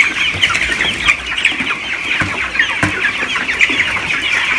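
A large flock of 19-day-old broiler chickens peeping without pause, hundreds of short high calls overlapping into one dense chorus, with a couple of brief knocks.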